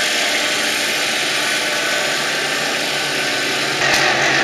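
Racing hydroplane engine running steadily and loudly, with a louder, rougher stretch near the end.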